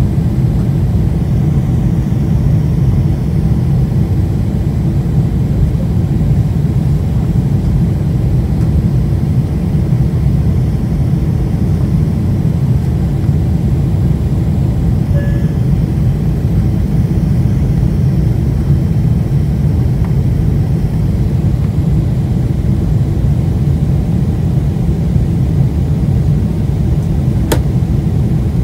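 Steady low rumble of a Boeing 747's engines and rushing air, heard inside the passenger cabin in flight. A single sharp click sounds near the end.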